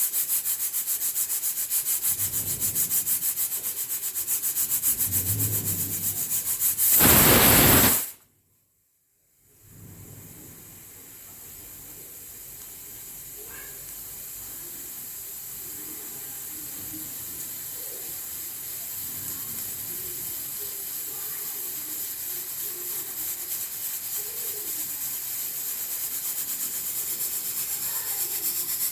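Hawkins pressure cooker venting steam under its vent weight: a fast-pulsing hiss that rises to a loud whistle blast about seven seconds in and then cuts off abruptly. After a short silence the steam hiss starts again and slowly grows louder as pressure builds.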